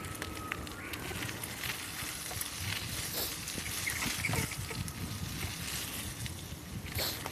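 Bicycle in motion: a steady rumble of tyres and wind on the microphone, with scattered clicks and rattles.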